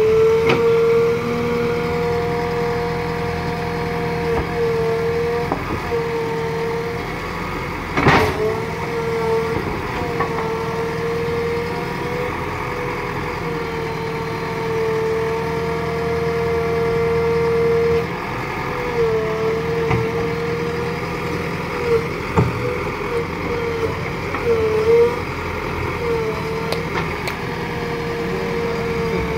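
JCB 3DX backhoe loader's diesel engine running steadily under load with a high whine, its pitch dipping briefly several times as the machine works its front loader bucket through wet mud. A single sharp knock about eight seconds in.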